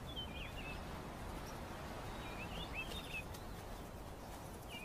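Small birds chirping, a few short high calls at a time, near the start and again about halfway through, over a steady hiss of outdoor ambience.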